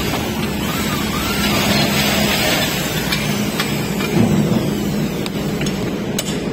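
Steady vehicle-engine rumble with a low hum. A few short clicks come about three, five and six seconds in.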